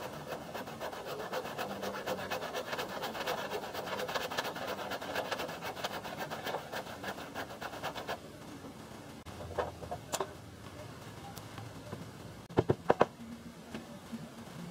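Hand saw cutting through a wooden plank in quick, even back-and-forth strokes, stopping about eight seconds in. A few sharp knocks follow, the loudest three in quick succession near the end.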